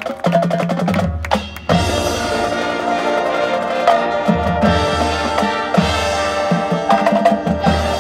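High school marching band playing its field show live. Sparse percussion over low bass tones, then about a second and a half in the full band comes in loudly with sustained wind and brass chords and drums.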